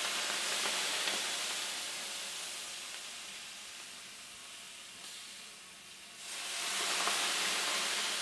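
Löyly: a ladleful of aroma water poured onto the hot stones of a wood-burning sauna stove, hissing into steam and slowly fading. About six seconds in a second ladleful sets off a fresh hiss.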